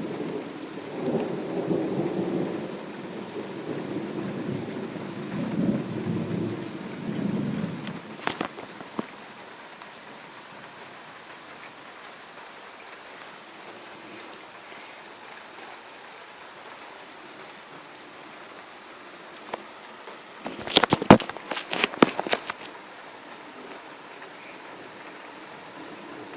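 Thunderstorm: a rolling thunder rumble for the first several seconds over steady rain, then steady rain alone. A cluster of loud, sharp cracks comes about two-thirds of the way through.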